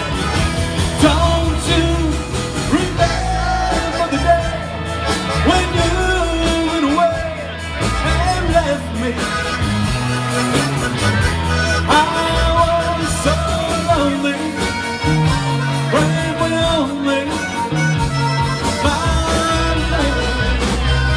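Live Tex-Mex band playing a loud instrumental stretch on drums, bass, electric guitar, keyboard, accordion and trumpet.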